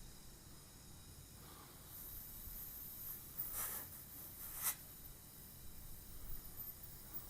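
Compressed air hissing through the inflator chuck into a freshly mounted motorcycle tire, with two sharp pops a second apart as the tire beads snap onto the rim. The hiss stops right after the second pop.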